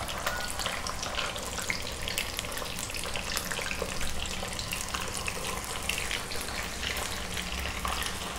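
Chicken pieces on potato slices deep-frying in hot oil in a kadai: a steady sizzle with constant light crackling.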